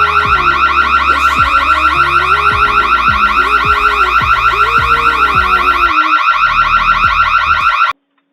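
Loud electronic alarm sounding a rapid, repeating rising chirp, over background music with low notes. The music drops out about six seconds in, and the alarm cuts off suddenly near the end.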